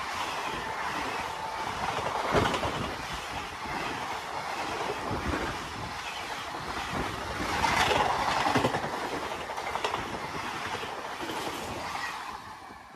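Passenger train coaches rushing past at speed, a steady rolling rush broken by sharp wheel clacks over rail joints every few seconds. A faint wheel squeal fades about a second in, and the noise drops away near the end.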